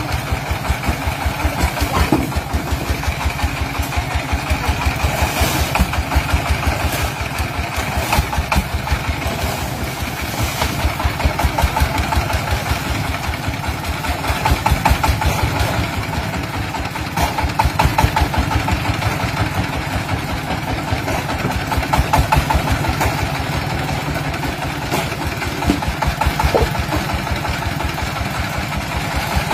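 Single-cylinder 'dompeng' diesel engine running steadily with a fast, even beat of firing pulses, its loudness swelling and easing every couple of seconds.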